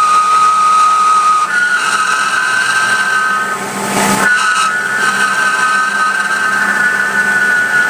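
CNC milling machine running and cutting gearbox parts, with a steady high-pitched spindle whine over cutting noise. The whine steps up in pitch about a second and a half in, and a brief surge of noise comes about four seconds in.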